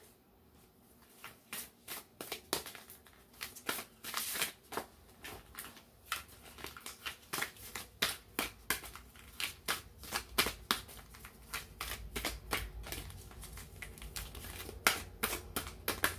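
A deck of cards being shuffled by hand: a quick, irregular run of card slaps and clicks starting about a second in.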